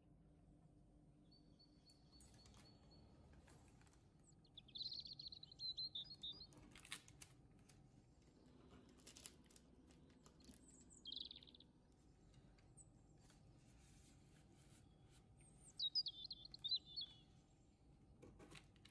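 A bird chirping in three short warbling phrases, about five, eleven and sixteen seconds in, over faint room tone with a few soft clicks.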